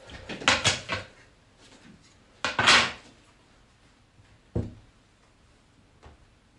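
Handling noise as a computer monitor is adjusted on a desk: two short bursts of rattling and scraping, in the first second and near the end of the third, then a single thump about four and a half seconds in.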